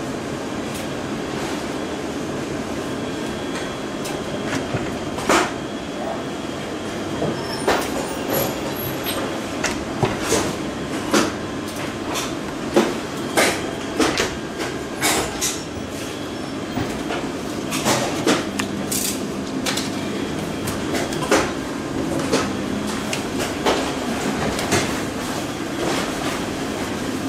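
Steady machine hum with about twenty irregular sharp clicks and knocks as PVC film and paper are handled and positioned on the bed of a high-frequency PVC welding machine.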